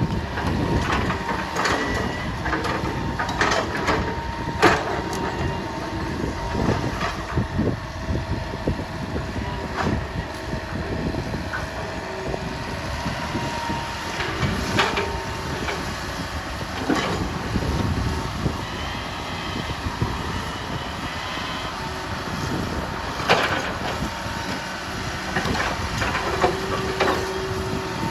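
A heavy construction machine's engine running steadily, with sharp knocks and clanks now and then.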